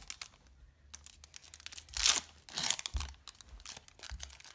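A foil Yu-Gi-Oh! booster pack wrapper being torn open and crinkled in the hands, with scattered crackles and the loudest rips about two seconds in.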